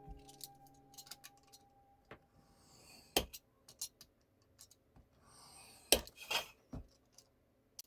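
Hobby knife cutting a PVC sheet: two short scraping strokes of the blade, each with sharp clicks and taps of the knife and plastic, the loudest clicks about three and six seconds in. Background music fades out in the first two seconds.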